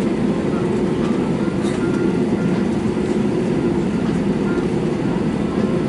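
Jet airliner cabin noise while the plane rolls on the runway: a steady low rumble of the engines and the wheels on the ground, heard from inside the cabin.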